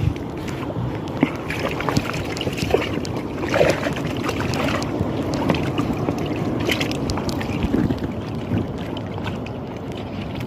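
Sea water splashing and lapping, with scattered small splashes and knocks and some wind on the microphone.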